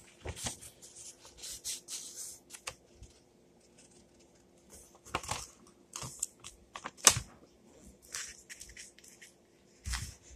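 A sheet of paper rustling and sliding on a wooden tabletop as it is folded and its crease pressed down, with scattered sharp taps and a soft thump near the end.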